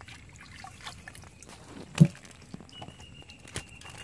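Bamboo fish trap (chai) being handled as it is lifted out of the water into a wooden boat: rattling of the bamboo slats and wet plants, with a loud knock about halfway through and a smaller knock near the end.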